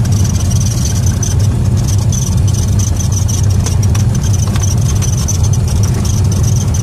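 Cessna Turbo 210's turbocharged six-cylinder engine and propeller running at low taxi power, heard inside the cabin, with a steady high whine over the deep drone.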